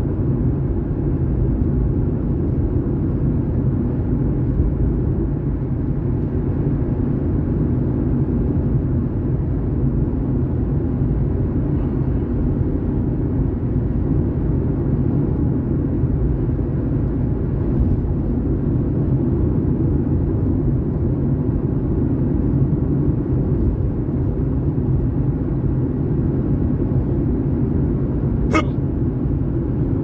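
Steady low road and engine rumble inside a moving car's cabin. Near the end comes one short sharp sound.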